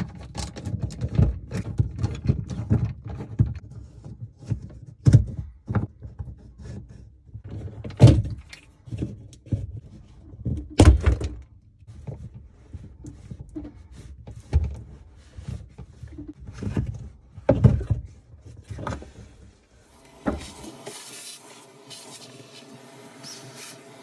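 Irregular knocks, clunks and rattles of hand tools and plastic water hoses as hose clamps are loosened and the hoses are worked off an RV fresh water tank. About twenty seconds in, a shop vacuum switches on and runs with a steady hiss.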